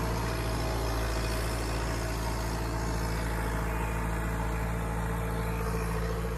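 Tractor engine running steadily with the PTO engaged, driving the fertilizer spreader's spinning discs.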